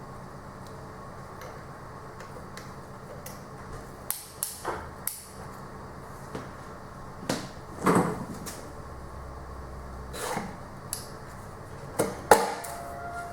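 Metal engine parts and tools being handled during assembly of a Toyota 2SZ engine: a run of separate sharp knocks and clanks, the loudest about halfway through and near the end, over a steady low hum.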